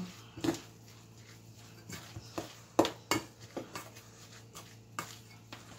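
A fork clinking and scraping against a stainless-steel mixing bowl as salmon cake mixture is stirred: irregular clinks and knocks, the loudest about three seconds in.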